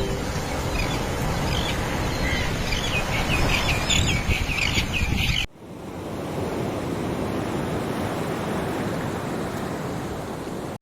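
Ocean surf and wind rushing steadily, with small birds chirping over it. About halfway through it cuts abruptly to a smoother, duller rush of surf and wind without the birds.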